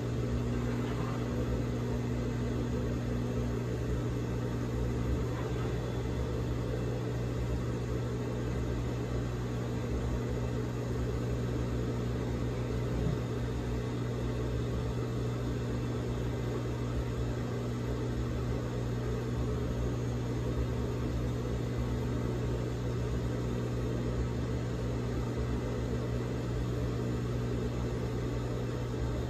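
Steady electric hum of a Juki industrial sewing machine's motor left running, unchanging throughout, with one faint click about thirteen seconds in.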